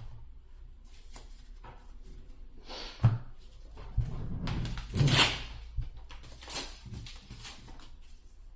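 Trading cards and foil booster packs being handled on a table: a few light knocks and a short rustling burst of packaging about five seconds in.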